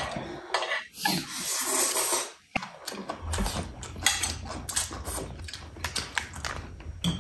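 Eating utensils clicking and tapping against dishes at a meal: a run of quick, irregular sharp clicks from about three seconds in.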